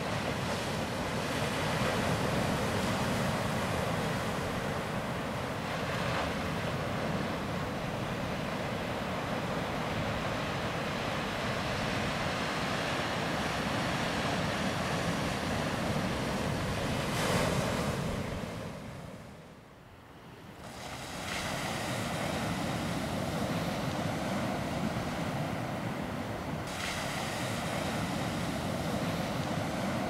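Small sea waves breaking and washing over rocks onto a sand and pebble beach, a steady surf wash with a few louder breaks. It fades down briefly about two-thirds of the way through and swells back.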